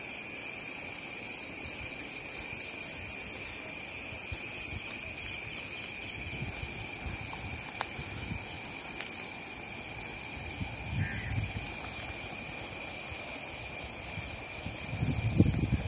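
Steady insect chorus, a constant high buzz over a lower trill, with an even hiss beneath. Low rumbles of wind on the microphone come in near the end.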